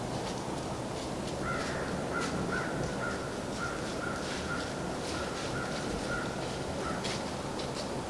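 A crow cawing in a steady run of about a dozen calls, roughly two a second, over a steady background hiss with scattered faint ticks.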